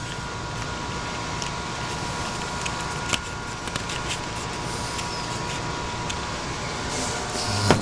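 Steady background hum and hiss, with a few faint clicks and taps from a phone being handled as a lens is fitted over its camera, and one sharper click near the end.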